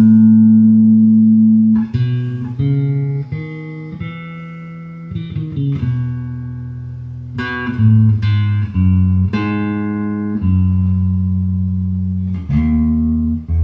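Electric bass guitar with flatwound strings playing a slow improvised melodic line in A Lydian: single plucked notes one after another, the first held about two seconds, then a run of shorter notes and another long one near the end.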